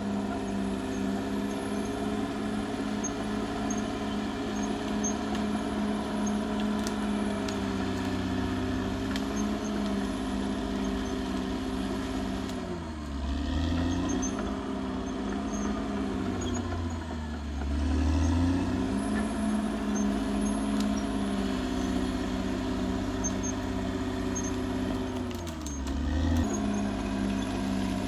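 Caterpillar D6R XL bulldozer's diesel engine running steadily at high revs. Its engine speed sags and then picks back up three times: twice about halfway through, and once near the end.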